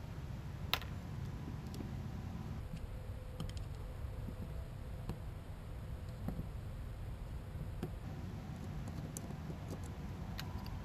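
Scattered light clicks and taps of a screwdriver and small metal carburetor parts being handled while an outboard carburetor is taken apart, the sharpest click about a second in, over a steady low background rumble.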